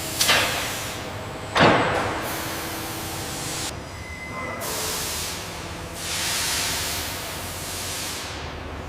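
Factory work sounds: two sharp knocks that ring on briefly, about a second and a half apart, then hissing that swells and fades a couple of times.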